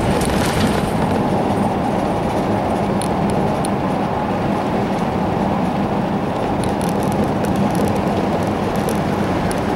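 Steady tyre and engine noise heard from inside a car driving along a paved road, with a low hum and a few faint ticks.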